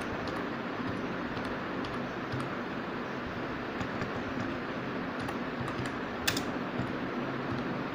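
Typing on a computer keyboard: scattered key clicks, one sharper click about six seconds in, over a steady background hiss.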